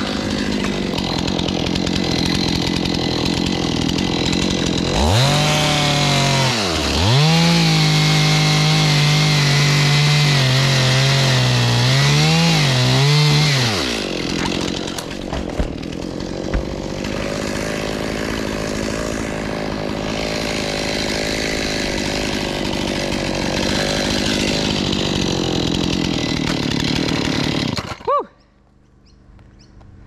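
Stihl top-handle chainsaw running at full throttle, cutting through a tree trunk. Between about five and fourteen seconds in, the engine pitch dips and climbs back several times as the cut loads it. The saw cuts off abruptly about two seconds before the end.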